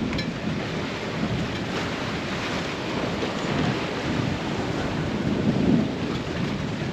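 Strong wind buffeting the microphone in gusts of low rumble, over the rush of water along a sailboat's hull as it sails fast under sail with the engine off.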